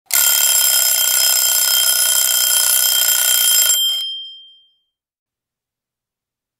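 Alarm-clock ringing sound effect: a steady, loud ring that lasts about three and a half seconds, then fades out.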